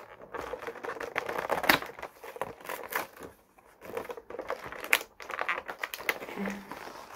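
Fingers picking and pulling at the cardboard door of an advent calendar box to open it: irregular scratching and many small sharp clicks and taps.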